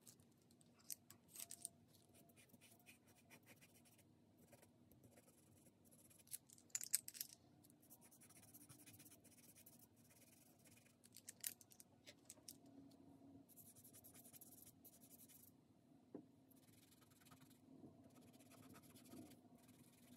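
Faint scratching of a pastel pencil stroking on textured pastel paper, in scattered short bursts with a few louder strokes, over a faint steady room hum.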